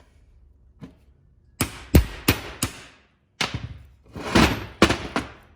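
Hammer taps driving a U-joint bearing cap into the yoke of a double-cardan CV joint. There are four quick sharp taps, then a longer stretch of rougher knocking, then two more taps near the end.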